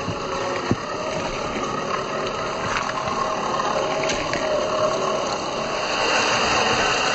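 Electric drivetrain of a 1/10-scale RC rock crawler, an Axial 35T brushed motor and its gearbox, whining steadily as the truck crawls over rock and dry leaves, with scattered clicks and crunches from the tyres on leaves and pebbles. It grows a little louder near the end.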